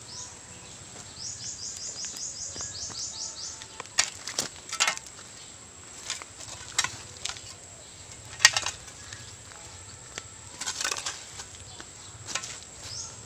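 Rural yard ambience: a run of quick, high chirps starting about a second in and lasting a couple of seconds, then a few scattered rustling and scuffing sounds.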